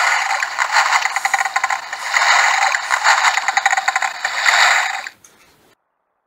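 Loud, dense rattling and scraping made of rapid clicks, stopping about five seconds in.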